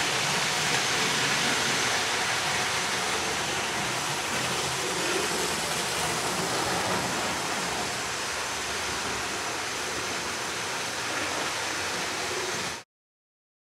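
Steady rushing noise of OO gauge model trains running on the layout, wheels on rail and small ringfield motors, with no clear swell as the train passes. It cuts off abruptly near the end.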